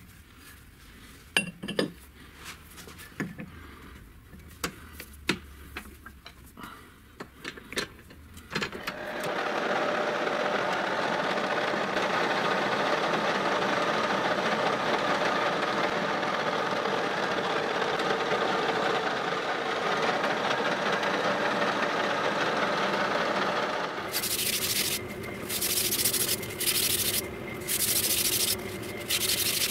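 Metal parts clinking and knocking as a roller and its shaft are handled, then a metal lathe starts abruptly about eight seconds in and runs steadily with the shaft spinning. Near the end the running drops in level and several short bursts of high-pitched noise come and go.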